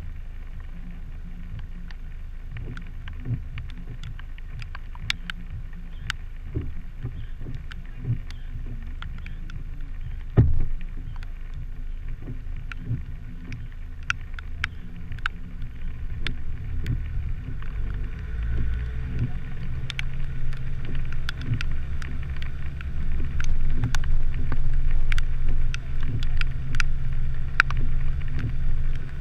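Car's engine and tyres on a wet, rough road, heard from a camera mounted on the vehicle's front: a low rumble that grows louder over the second half, with many scattered small clicks and knocks, and one sharper knock about ten seconds in.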